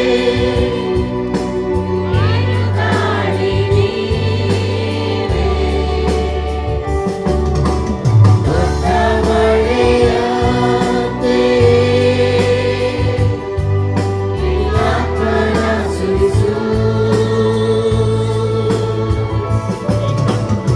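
Christian worship music: a choir singing a Kannada worship song with musical accompaniment.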